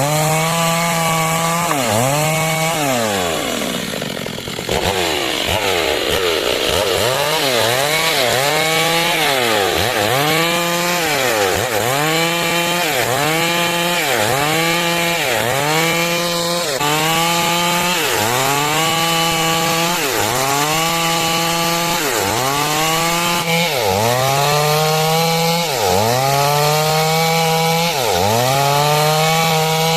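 Stihl MS 382 two-stroke chainsaw running at high revs while ripping wood into planks. Its pitch dips under load and climbs back in a steady rhythm, about every second and a half, with one deeper dip a few seconds in.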